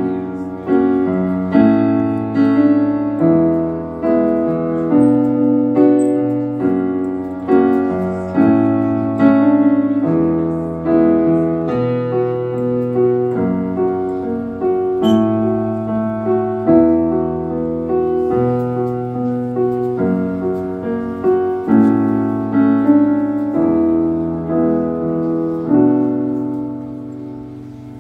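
Live keyboard playing slow piano-toned chords without vocals, a new chord struck about every second and left to ring. The closing chords fade out near the end as the song finishes.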